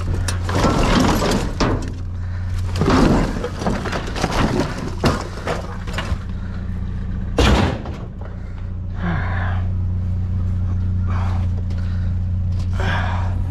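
Scrap being banged and broken apart in a dumpster, with clattering knocks and one sharp loud bang about seven and a half seconds in, then lighter scraping. A steady low engine hum runs underneath.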